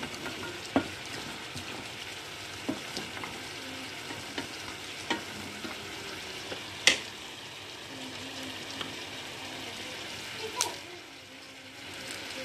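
Boiled peanuts in their shells stirred with a wooden spatula in a hot stainless steel pan: a steady sizzle of the remaining cooking liquid, with scattered knocks and rattles of shells and spatula against the pan, the loudest about seven seconds in.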